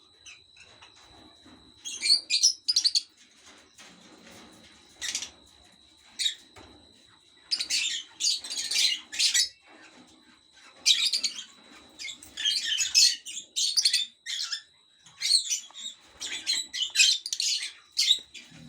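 Lovebird chicks calling in shrill, squeaky chirps that come in repeated bursts every second or two, starting about two seconds in.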